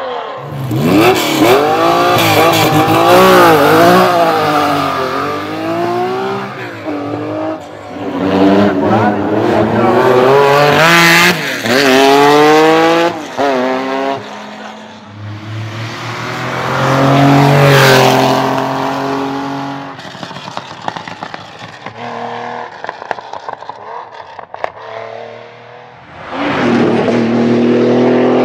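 Porsche 911 rally cars' air-cooled flat-six engines accelerating hard over several passes, the pitch climbing through each gear and dropping at every shift. The engines go quieter past two-thirds of the way through, then rev up again near the end.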